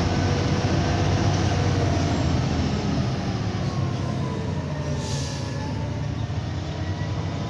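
Scania 113 truck's 11-litre straight-six diesel heard from inside the cab, pulling steadily in third gear down a long steep grade with road noise. A faint whine slowly falls in pitch, and a brief hiss comes about five seconds in.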